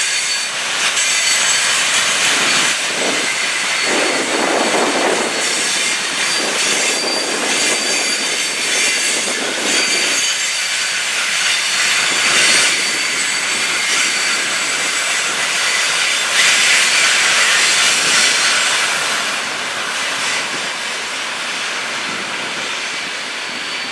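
Freight train wagons rolling past on the track: continuous loud wheel-and-rail noise that swells and eases a few times, with a thin high-pitched squeal at times.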